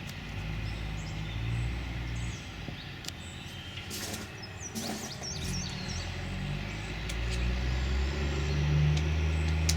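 Low rumble of a motor vehicle's engine, growing louder over the last few seconds, with a few faint sharp clicks.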